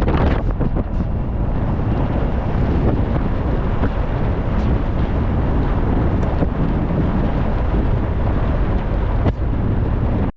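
Loud, steady wind buffeting the microphone, a dense rumble with a few clicks in the first second, cutting off suddenly at the end.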